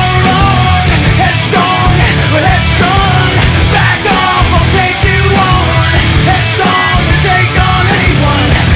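Loud, dense rock music, punk-like in style, playing continuously.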